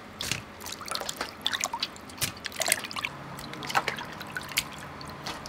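Water splashing and dripping as hands rub and turn sea mushrooms in a metal bowl of water, with small irregular splashes and drips throughout.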